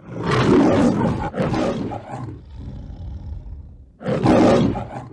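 A lion roaring, the MGM-style studio-logo lion roar: one long roar of about two seconds that fades, then a second, shorter roar about four seconds in.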